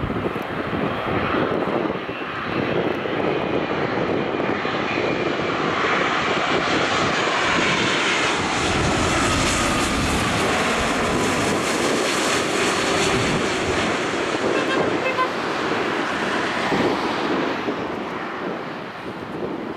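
Boeing 787-9 Dreamliner jet engines on final approach as the airliner passes low overhead. The jet noise builds to its peak about halfway, with a whine that falls in pitch as the aircraft goes by, then thins out as it flies on toward the runway.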